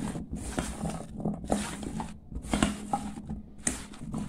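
Silicone spatula tossing chunks of carrot and radish in a stainless steel bowl: irregular scraping and light clattering as the pieces are turned over to coat them with spices.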